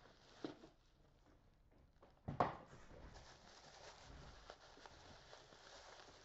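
Workbench handling sounds: cardboard being moved about, a sharp knock about two and a half seconds in, then a faint steady hiss.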